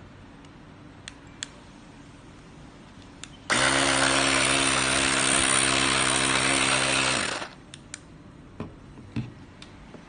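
Cordless 12 V portable tyre inflator's electric motor and piston compressor switching on suddenly and running steadily for about four seconds, then winding down. Its hose chuck is hanging free, not clipped to a valve, so it is running without load. Light handling clicks come before and after.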